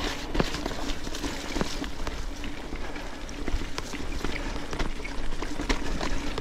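Trek Supercaliber mountain bike rolling over a rough forest track: steady tyre noise with irregular clicks and rattles from the bike.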